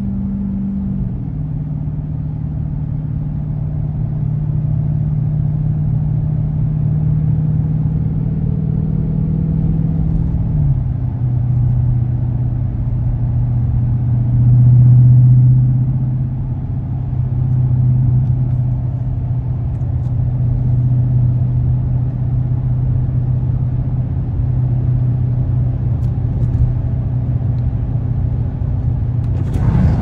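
Dodge Scat Pack's 6.4-litre HEMI V8 cruising at about 50 mph, a steady low drone heard from inside the cabin. Its pitch steps down twice, about a second in and again about ten seconds in, and it swells briefly around the middle.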